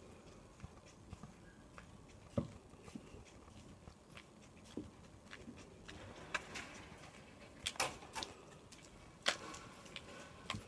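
Footsteps on an asphalt lane: faint irregular scuffs and clicks, with a few sharper clicks in the second half.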